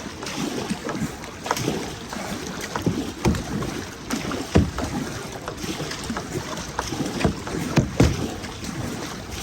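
Kayak paddling on a river: paddle blades splashing through the water in irregular strokes, with sharp splashes and knocks over a steady watery wash.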